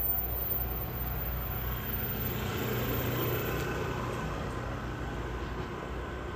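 Taiwan Railways EMU3000 electric multiple unit running on the rails as it pulls into a station, a steady rolling rumble with a faint steady whine that slowly fades as the train draws away.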